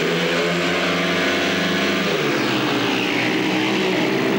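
Four speedway motorcycles, 500 cc single-cylinder methanol engines, revving hard as they launch from the starting tapes and race away. The pitch shifts about two seconds in.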